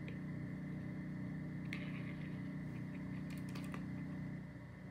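A homemade pirinola, a cardboard hexagon top on a popsicle-stick spindle, spinning on a hard floor. Its stick tip gives a few light ticks, about two seconds in and again just past three seconds, over a steady low hum.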